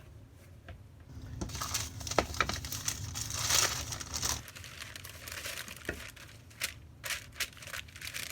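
Packing paper crinkling and rustling as a box and its contents are handled, loudest in the first half. A few light taps and clicks follow.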